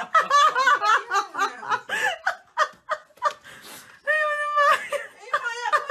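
A person laughing and giggling in quick, breathy bursts, with one longer drawn-out vocal note about four seconds in.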